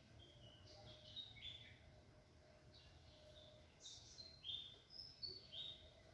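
Small birds chirping faintly, a scatter of short high chirps and calls that come thicker and louder in the second half.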